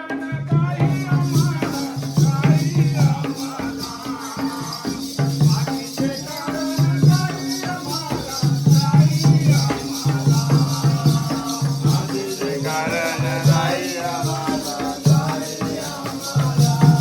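Jakhadi folk music: a melody sung over a repeating drum pattern, with a constant high jingle running through it.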